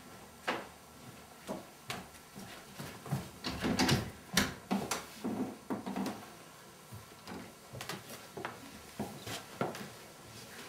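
Irregular knocks and clatter from people moving about and a panelled door being opened and handled, busiest and loudest about four seconds in.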